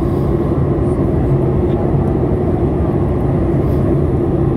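Steady in-flight cabin noise of a Boeing 737 MAX 8: the even roar of airflow and the CFM LEAP-1B engines, with a constant low hum.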